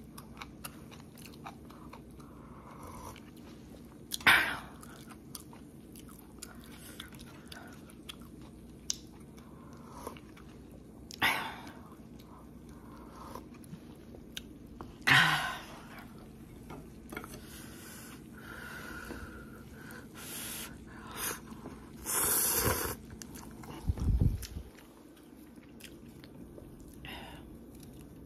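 A person eating instant cup noodles close to the microphone: steady soft chewing and mouth noises, broken by about five short, louder noises spread through.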